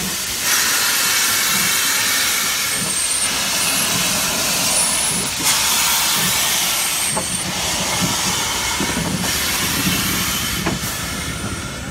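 Steam locomotive 140 C 38 venting steam: a loud, steady hiss from the steam escaping low around its cylinders, stepping up about half a second in.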